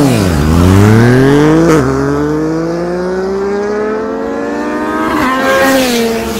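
Kawasaki Versys 650 parallel-twin engine accelerating hard through the gears in a drag run, its pitch climbing steadily, with an upshift just after the start and another near two seconds in. Near the end a second motorcycle is heard going by.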